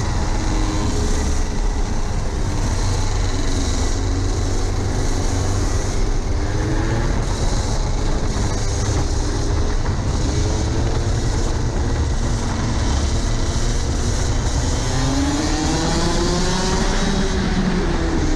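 Rotax Max Senior 125cc two-stroke kart engine running at racing speed, heard onboard with heavy wind rumble on the microphone. The engine pitch climbs over the last few seconds as the kart accelerates hard.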